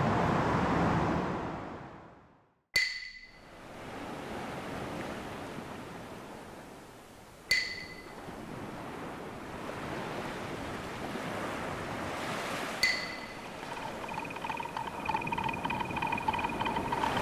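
Steady hiss of ambient noise, fading to silence about two seconds in. Then come three sharp strikes, each with a short ringing tone, about five seconds apart. A faint steady tone comes in near the end.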